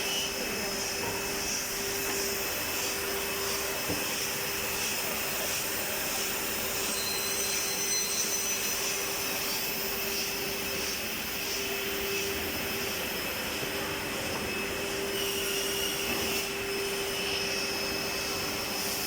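Reignmac RMD6025M double end tenoner running steadily while machining MDF cabinet board: a constant hum and high whine over an even rushing noise.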